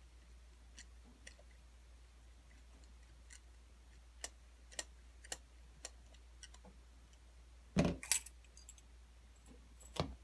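Small metal ticks and clicks from a gas blowback pistol magazine being taken apart by hand, as its base screw is worked loose. Two louder clatters of metal parts come near the end.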